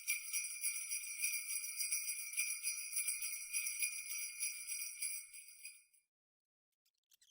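Rapid, continuous metallic jingling, as of small bells shaken, which fades and stops about six seconds in.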